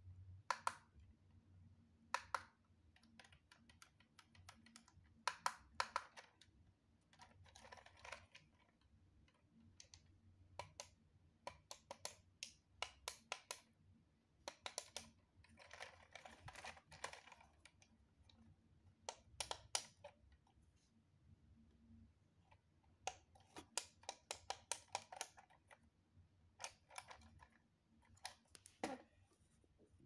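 A LEGO Technic joystick worked by hand: hard plastic parts clicking and rattling as the stick and its linkage move, faint, with scattered sharp clicks and a few spells of quick rattling.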